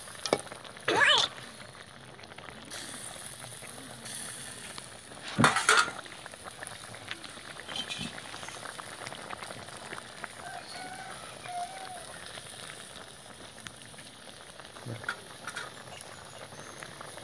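Quail curry boiling in an aluminium pot, a steady bubbling hiss. A metal ladle stirs and scrapes against the pot twice, loudly, about a second in and again about five and a half seconds in.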